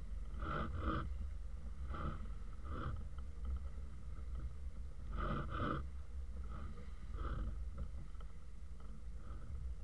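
Small waves slapping and splashing irregularly against the hull of a Balaton 18 sailboat under sail, some in quick pairs, over a steady low rumble of wind on the microphone.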